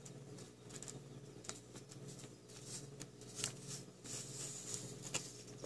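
Faint rustling and a few light ticks as a foil packet of Popin' Cookin' donut dough powder is shaken and squeezed to pour its powder into a small plastic tray, over a faint steady hum.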